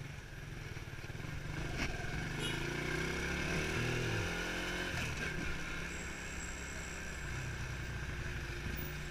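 Motorcycle engine on the move, climbing in pitch as it speeds up from about two to five seconds in, then running steadily.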